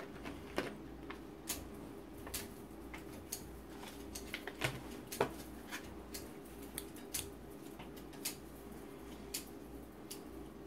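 Scattered sharp clicks and snips of metal surgical instruments and gauze being handled at the bedside, irregular and light, over a steady low hum.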